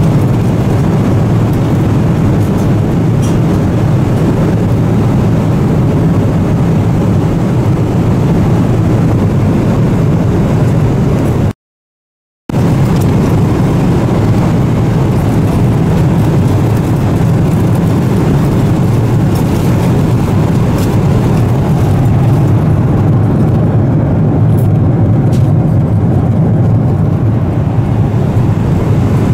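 Steady low cabin noise inside a Boeing 777-300ER at cruise: the constant rumble of airflow and engines heard from a passenger seat, cut by about a second of silence near the middle.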